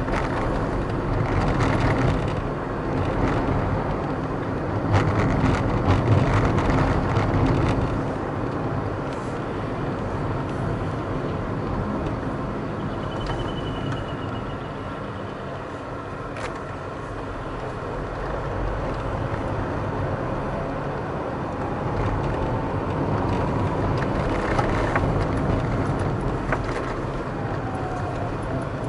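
Car driving along a city street in traffic: steady engine and tyre noise, louder for a few seconds about five seconds in.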